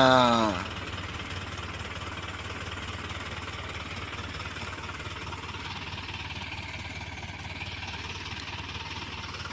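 Steady low rumbling noise with a rough, even texture, like an engine idling, under the tail of a man's word at the very start.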